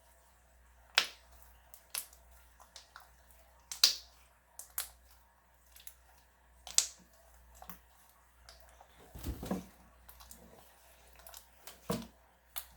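Slime being squeezed and worked by hand, giving irregular sharp pops and clicks, the loudest about a second in, near four seconds and near seven seconds, with a longer, lower squelch a little after nine seconds.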